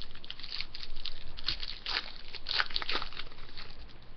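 Wrapper of a hockey card pack being torn open and crinkled, a run of irregular crackles and rustles.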